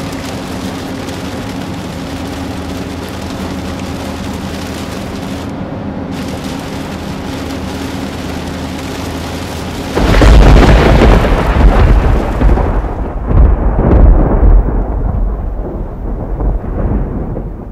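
Inside a Nissan Murano driving on a wet highway in rain: steady road and engine hum with rain noise. About ten seconds in, a much louder rolling rumble of thunder starts abruptly and goes on in several surges.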